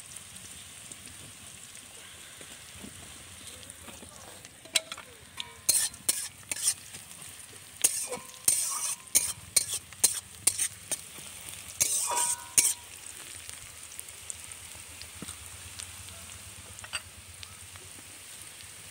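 Sliced onions sizzling in hot oil in a metal kadai, being fried until reddish. A spatula stirs them, scraping and knocking against the pan in clusters through the middle.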